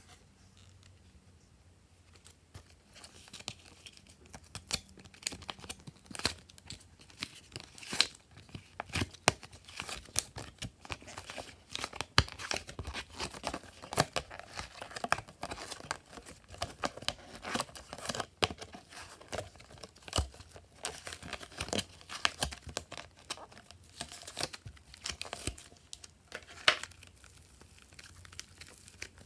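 Thin clear plastic tray crinkling and crackling as sticks of clay are pulled out of it by hand: dense, irregular sharp crackles that start a couple of seconds in and thin out near the end.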